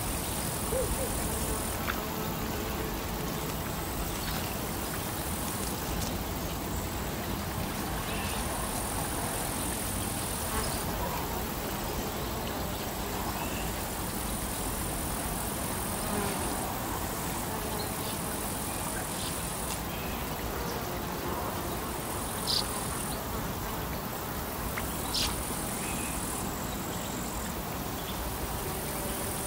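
Insects trilling high-pitched in on-and-off spells of a second or three, over a steady background of wind and water. A couple of sharp clicks stand out late on.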